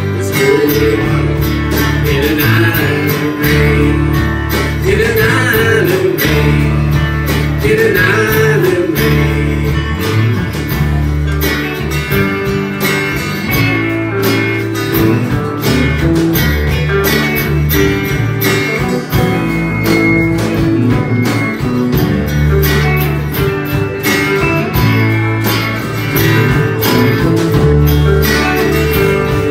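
Live country band playing: strummed acoustic guitars with electric guitar, mandolin, bass and drums, in a full, steady ensemble sound.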